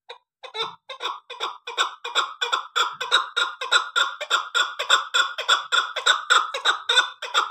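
Six-month-old chukar partridge calling: a long run of short clucking notes that starts slowly and quickens into a steady series of about four a second, growing louder after the first second or two.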